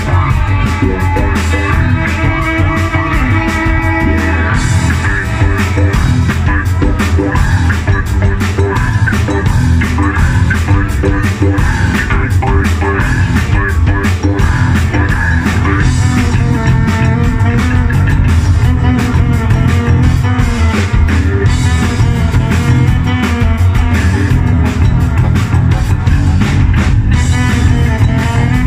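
Live band playing loud and steady: electric bass and drum kit driving a busy groove, with saxophone and a drumstick striking hand-held percussion on top.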